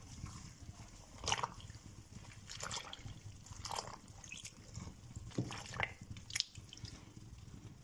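Brine in a stainless steel pot sloshing and dripping as a wooden spoon presses grape leaves down into it: faint, scattered short splashes, about eight in all.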